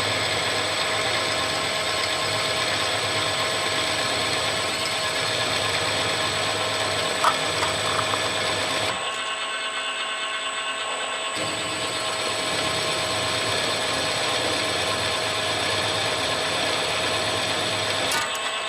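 Milling machine spindle running while drilling a pin hole: a steady machine drone with a constant whine. It goes quieter for about two seconds midway, then picks up again.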